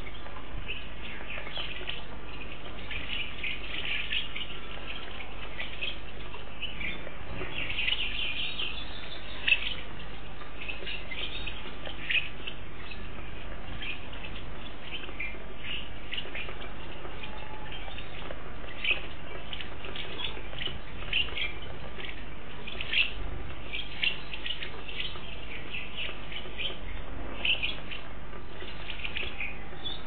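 A flock of small seed-eating birds chirping continually at a feeder, many short high calls overlapping, with a few sharper clicks, over a steady low hum.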